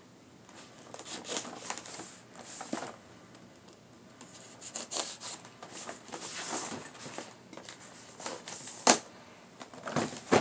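A folding knife blade slicing through packing tape and cardboard along the seams of a parcel, giving irregular scratchy cutting and tearing strokes. There are two sharp knocks, one about nine seconds in and one near the end.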